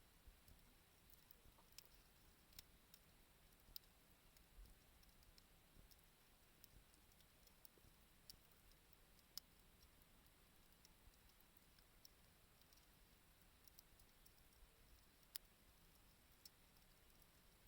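Faint crackling of a wood bonfire: sparse, irregular small pops and ticks over near silence.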